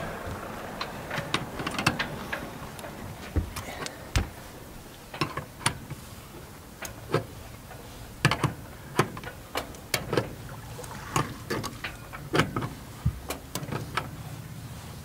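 Irregular sharp metallic clicks and clinks, about one or two a second, from a stainless-steel shroud turnbuckle being turned by hand to tension a sailboat's lower shroud.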